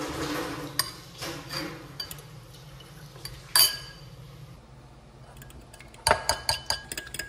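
Metal fork clinking against a glass bowl while beating raw eggs: irregular light clinks, one sharp clink a little past halfway, then a fast run of clinks near the end.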